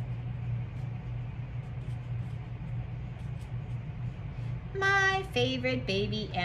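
A steady low hum, with a voice singing or drawing out a few held notes that step in pitch near the end.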